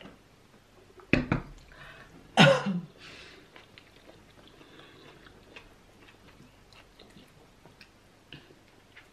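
Mukbang eating sounds: a drinking glass set down with a couple of sharp knocks about a second in, then a short, loud throaty sound from the eater, followed by soft chewing and mouth clicks over pounded yam and okra soup.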